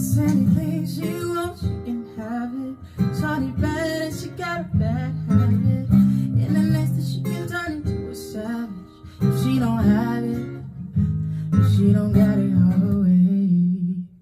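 Acoustic guitar strumming and picking the outro of an acoustic song, with a wordless vocal line over it. The music stops abruptly at the very end.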